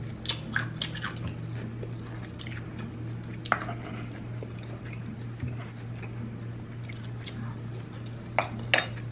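Close-miked eating: crunchy bites and chewing of raw cucumber, then chewing with scattered sharp wet mouth clicks, one standing out about three and a half seconds in and two more near the end.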